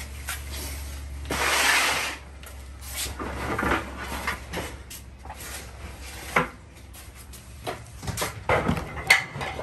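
Clutter being handled: a scraping rustle about a second and a half in, then scattered knocks and bumps as a piece of wood and other items are lifted off plastic storage totes.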